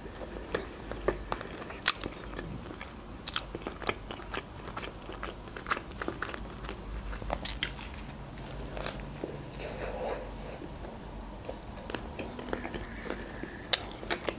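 Mouth sounds of a person chewing and biting into a McDonald's Big Mac: a string of short, sharp clicks and smacks.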